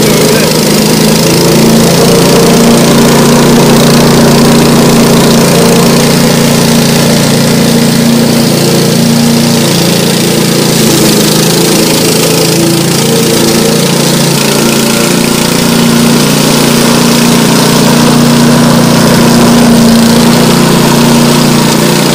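Engine of a tracked remote-controlled brush mower running steadily and loudly while it cuts through tall grass and brush.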